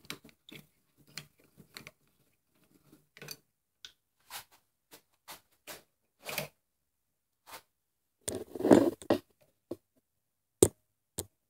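Scattered light metal clicks and taps of a socket, bolts and small parts being handled and fitted on a VW 09G transmission valve body, with a louder clatter about three quarters of the way through and two sharp clicks near the end.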